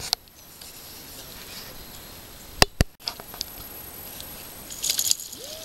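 A few sharp clicks over a steady background hiss: two loud ones close together about two and a half seconds in, fainter ticks just after, and a short high crackle near the end.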